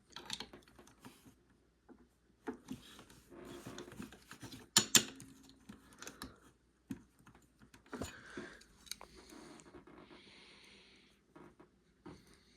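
Objects being handled: scattered clicks, knocks and rustling, with two sharp clicks close together about five seconds in.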